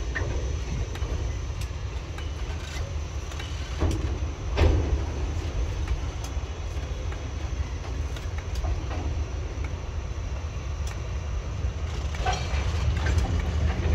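TasRail TR class diesel-electric locomotives running with a steady low rumble, with scattered metallic knocks and clanks from the train, the loudest a little under five seconds in.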